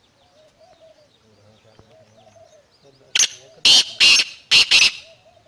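Black francolin (kala teetar) calling: a loud, harsh series of five grating notes in about two seconds, starting about three seconds in.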